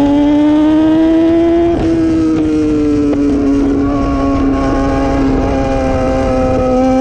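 Sport motorcycle's inline-four engine pulling at high revs. Its pitch climbs for about two seconds, breaks off briefly, then falls slowly and holds steady, with wind rush beneath.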